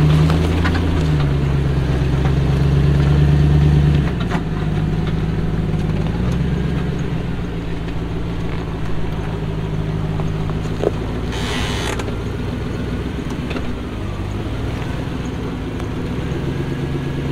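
Off-road vehicle's engine running, its pitch stepping up and down several times as it is given throttle and eased off, loudest in the first few seconds. A brief hiss about eleven and a half seconds in.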